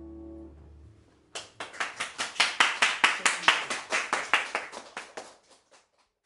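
The last held chord of piano and upright bass dies away, then a few pairs of hands clap for about four seconds, the claps thinning out and stopping near the end.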